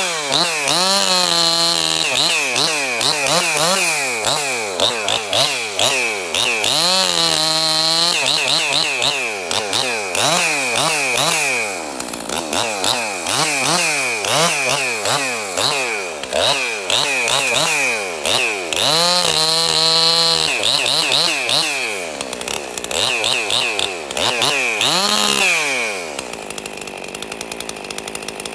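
Ported Husqvarna 262XP two-stroke chainsaw running with its engine note repeatedly climbing to a held high rev and sagging again, as when the saw is opened up and loaded in cuts through pine. It runs on a piston ring the owner found badly worn, giving low compression. About two seconds before the end the engine note drops away.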